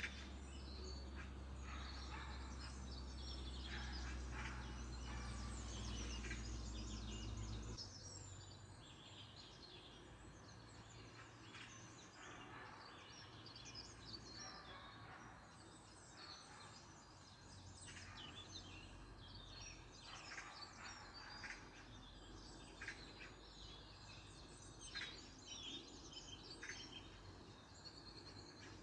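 Faint songbirds chirping and singing, many short calls overlapping, over a low steady rumble that cuts off about eight seconds in.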